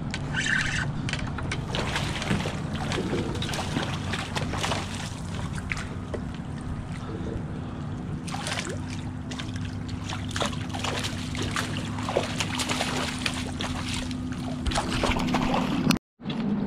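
Water splashing and gear clattering as a hooked sheepshead is brought alongside a kayak and scooped into a rubber landing net, with many short clicks and knocks. A steady low hum runs underneath. The sound cuts out briefly near the end.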